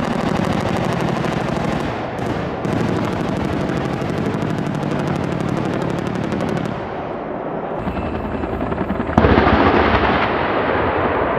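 AH-1S Cobra attack helicopter's chin-turret gun firing a long, very rapid burst, with the helicopter's rotor and engine running underneath. After about seven seconds the firing stops, and about nine seconds in a sudden, louder rushing noise comes in.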